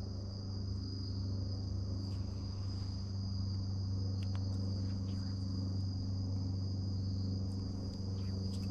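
Steady chorus of insects, a continuous high-pitched trill, over a steady low hum.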